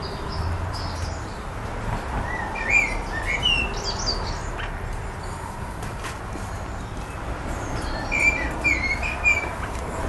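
Quaker parrots chirping in two short runs of quick, wavering twitters, one a couple of seconds in and another near the end, over a steady background hiss.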